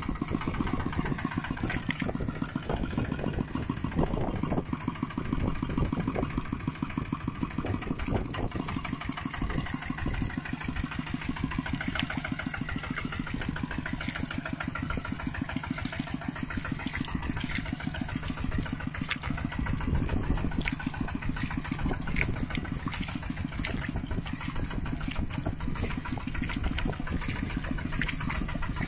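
Mini tractor engine running steadily, its firing heard as a fast, even beat.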